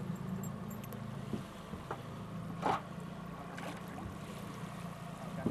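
Boat motor idling with a steady low hum, with a few short sharp sounds over it, the loudest about two and a half seconds in.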